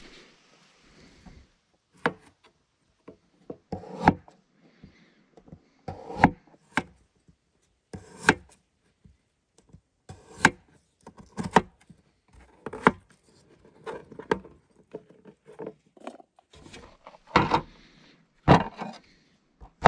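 Knife chopping baby red potatoes on a plastic cutting board: sharp, irregular strikes of the blade against the board, about one every second or two, some in quick pairs, with a denser run of knocks near the end.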